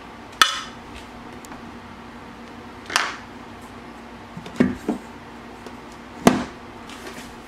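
Sharp metallic clinks and knocks from a tool and bolt hardware against an inline skate frame while it is being mounted to the boot: about five separate hits a second or more apart, two of them close together in the middle.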